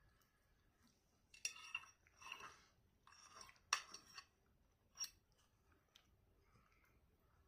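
Cutlery clinking and scraping against a plate in a handful of short bursts about a second apart, the sharpest one a little past the middle.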